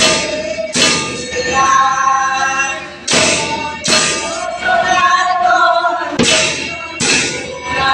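A group of men and women singing a devotional hymn together, with hand cymbals crashing in pairs about every three seconds.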